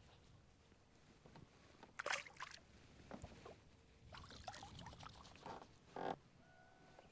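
Quiet water sounds around a small boat: a few scattered faint splashes and knocks.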